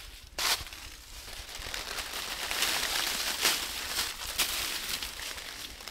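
Footsteps crunching and rustling through dry fallen leaves on a hillside, with a sharp crunch about half a second in and a longer stretch of rustling in the middle.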